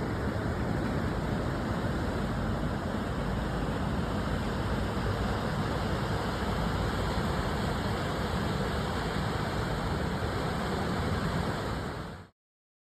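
Strong storm wind buffeting the microphone: a steady noise heaviest in the low end. It cuts off abruptly near the end.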